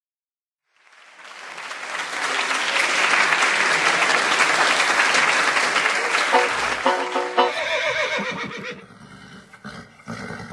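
A crowd applauding, swelling up over the first couple of seconds, then a donkey braying several times about two-thirds of the way in, standing in for the roar of a film-studio lion logo.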